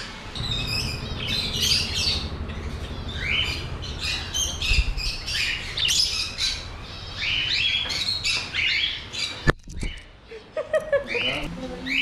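Many aviary birds calling at once: overlapping squawks and short chirps throughout. A low rumble runs under the first few seconds, and one sharp click comes about nine and a half seconds in.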